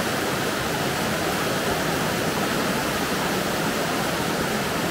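Small cascade of river water tumbling over rocks: a steady, even rush.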